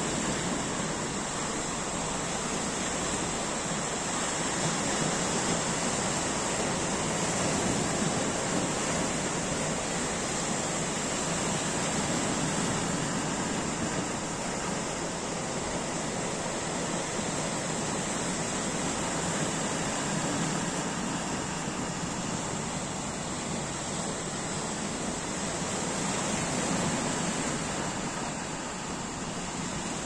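Small waves washing and breaking against shoreline rocks: a steady surf wash that swells and eases every several seconds.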